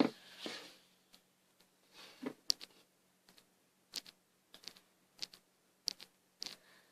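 Faint, scattered light clicks and taps, roughly one or two a second, with a soft rustle and a knock at the start: small objects being handled on a work surface.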